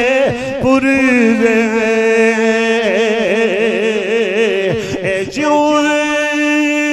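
A man singing unaccompanied in a slow, ornamented devotional style, holding long vowels. The note wavers in small turns from about three seconds in. After a brief break just before five seconds, he takes up a higher note and holds it steadily.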